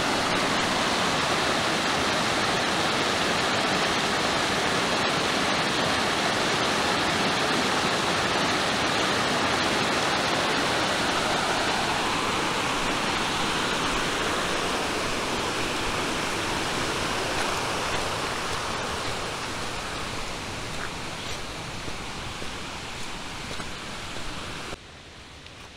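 Mountain stream rushing: a steady, loud noise of flowing water that fades gradually through the second half and drops away abruptly about a second before the end.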